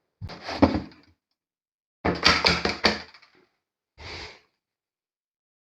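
Knocks and rattles of something being handled, in three short bursts, the last a brief quieter one about four seconds in.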